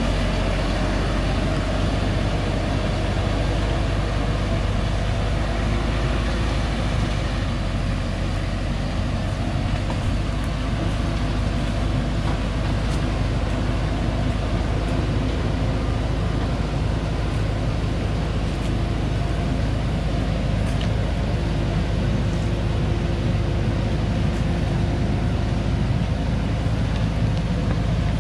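Diesel engine of a log-laden Thaco Forland FC950 4WD truck running steadily under load as it crawls slowly along a muddy forest track, a constant low drone.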